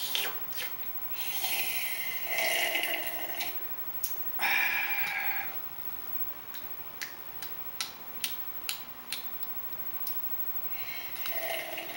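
Loud, noisy slurping sips from a mug, three of them, each lasting one to two seconds, with a few small clicks in between.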